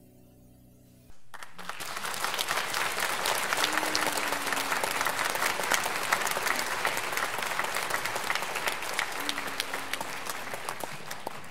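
Audience applauding. The clapping breaks out suddenly about a second in, as the last note of the double bass and piano dies away, and carries on as dense, steady clapping.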